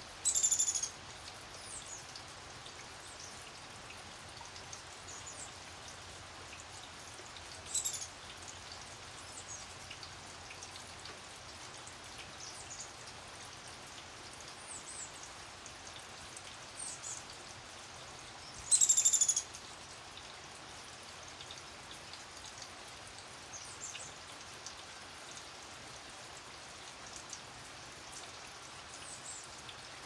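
Steady rain falling, with songbirds at the feeders giving short, high, downward-sliding chirps. The loudest calls come at the very start, about 8 seconds in and about 19 seconds in, with fainter chirps between.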